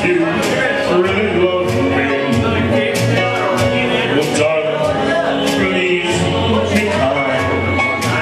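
A man singing karaoke into a microphone over a recorded backing track with a steady drum beat.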